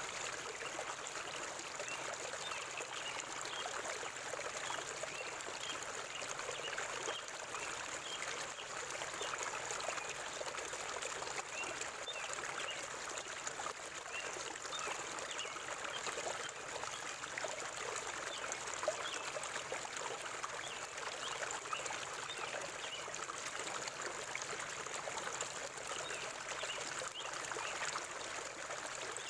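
River water flowing in a steady babble of many small trickles and splashes, with a thin, steady high hiss above it.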